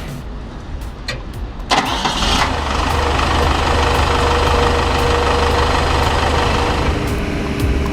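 Diesel engine of a 1998 Hyundai R1300LC-3 excavator starting. It catches suddenly a little under two seconds in, then settles into a steady idle.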